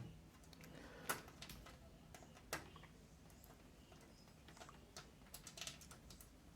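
Faint, sparse clicks and small taps of a screwdriver and screws against a PC case while a case fan is being screwed in: a sharp click about a second in, another about two and a half seconds in, and a run of light ticks near the end.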